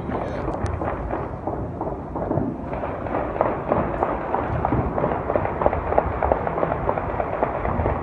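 A rapid string of distant bangs, about seven a second for several seconds, starting about three seconds in, over steady low background noise.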